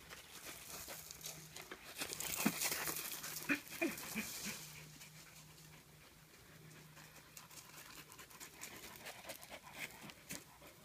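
A Border Collie panting close by, with paws scuffing and crunching on gravel. The scuffing is busiest a couple of seconds in.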